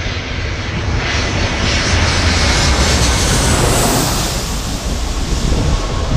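Boeing 737 airliner on final approach passing low overhead, its jet engines' roar swelling to a peak with a high hiss about three to four seconds in, then easing off as it moves away.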